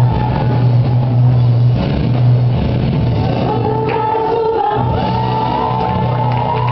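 Live praise and worship music: voices singing a melody over a band with a strong sustained bass, which drops out briefly twice.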